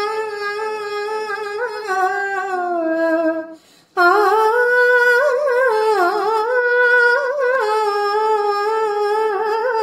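A single high voice humming a slow tune unaccompanied, in long held notes that waver and slide. It breaks off briefly about three and a half seconds in, then goes on.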